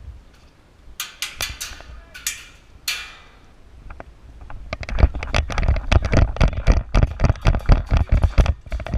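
Running footsteps of a player in airsoft gear, quick heavy thuds with rattling equipment, starting about five seconds in; before that, a few scattered clicks and rustles.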